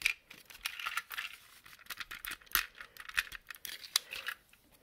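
Plastic parts of a snap-together B-17 model kit being handled and pressed together: a string of sharp clicks and taps, the loudest about two and a half seconds in, with short stretches of plastic rubbing and scraping.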